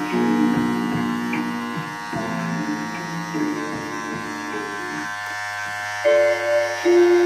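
Cordless electric hair trimmer buzzing steadily as its blade edges a hairline, with music playing over it.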